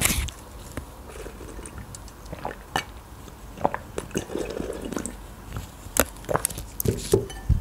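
Borscht being drunk straight from a glass bowl: quiet sips and swallows with scattered small clicks, and a sharp clink of the glass bowl at the start.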